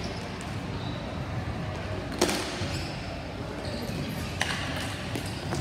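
Ball hockey play: sharp clacks of sticks and ball, with one loud hit about two seconds in and a smaller one a couple of seconds later, over a steady low background rumble.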